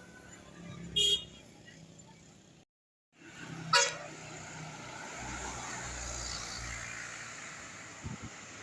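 Two short horn toots from passing road vehicles, the second and louder one a little before the middle, with a brief dropout between them; a vehicle then passes with steady engine and tyre noise.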